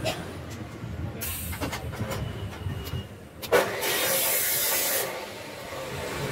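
TIG welding torch: a sharp click about three and a half seconds in, then shielding gas hissing out for about a second and a half, with a shorter hiss a little over a second in.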